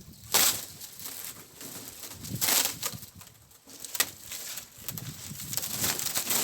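Plastic sheeting from a wind-wrecked greenhouse crackling and flapping in several bursts as it is pulled off the frame, with a sharp click about four seconds in.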